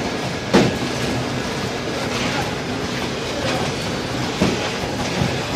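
Food-packaging machinery, a flow-wrapping machine and conveyors, running steadily with scattered clicks and knocks; the loudest knock comes about half a second in, with smaller ones near the end.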